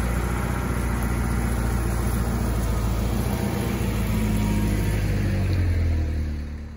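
A 1983 Alfa Romeo Spider's twin-cam four-cylinder engine running at low revs as the car drives slowly past, the note rising a little near the end before fading quickly as the car moves away.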